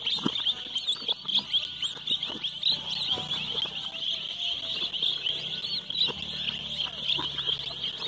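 A basin full of young chicks peeping constantly, a dense chatter of many overlapping high cheeps, with a few soft knocks from handling.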